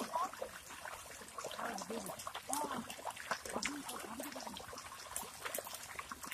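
Wet splashing and squelching in shallow mud water as people wade and grab at fish, many short splats in quick succession, with faint distant voices calling.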